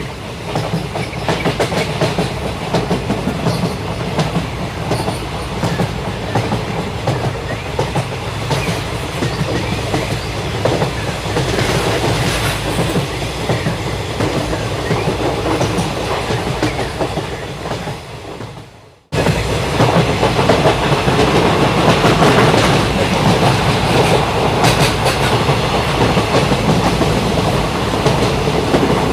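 A train running on the rails, with the clickety-clack of its wheels over the track joints and a steady rumble. About two-thirds of the way through the sound fades away and breaks off, then comes back suddenly, louder.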